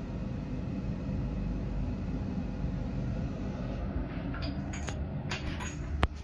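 Steady low rumble of room noise, with a few light clicks and knocks from about four seconds in and one sharp click near the end, the loudest sound.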